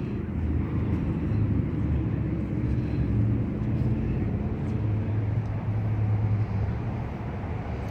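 A car engine running with a steady low rumble that wavers slightly in pitch.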